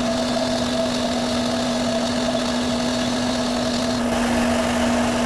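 Electric buffing wheel running at full speed, a steady motor hum under a broad hiss, as a rust-treated metal lathe part is buffed against it. A faint high tone in the hiss stops about four seconds in.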